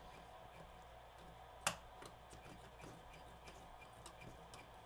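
Faint small ticks and clicks from the cassette deck's tape transport mechanism being worked by hand to get it to eject, with one sharp click about a second and a half in.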